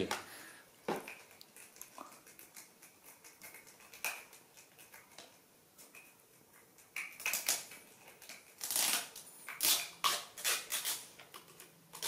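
Crinkling and clicking of small plastic yogurt cups being handled and their foil lids peeled open, a string of short rustles that gets louder about seven seconds in.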